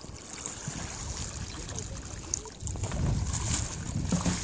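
Water sloshing and lapping as a bather wades waist-deep into an ice hole, arms pushing through the water, with wind rumbling on the microphone, heavier in the second half.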